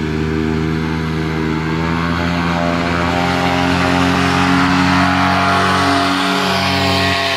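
Paramotor engine and propeller running at full throttle for takeoff, a loud steady drone; its pitch drops slightly near the end as it passes close by.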